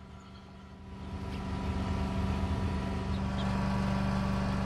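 A motor vehicle's engine running with a steady low hum, growing louder about a second in.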